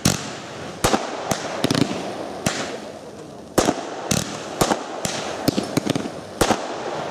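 Fireworks display: aerial shells bursting overhead in quick, irregular succession, about fifteen sharp bangs, roughly two a second, over a steady rushing noise.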